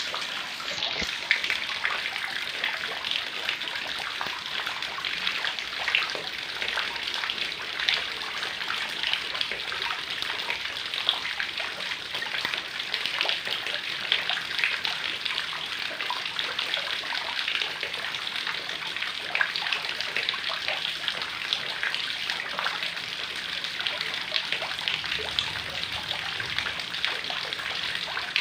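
Heavy rain falling steadily: a dense, even hiss of water with many small sharp drop hits scattered through it.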